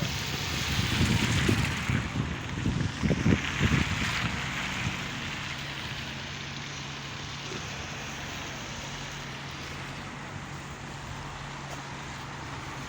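Wind buffeting the microphone in gusts for the first five seconds or so, then a steadier outdoor wash of noise with a faint low hum underneath.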